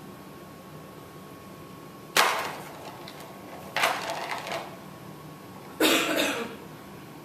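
A cat's plastic ball-track toy: the cat swats the ball three times, and each time it clatters fast around the ring's track and dies away.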